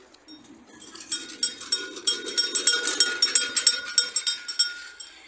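Small metal bells shaken or struck rapidly, ringing with several clear steady tones. The ringing starts about a second in and stops shortly before the end.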